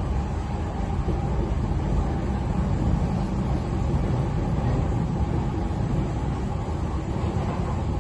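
Steady running noise heard inside the passenger car of a JR Chuo Line commuter train moving at speed, mostly a low rumble from the wheels on the rails and the car body.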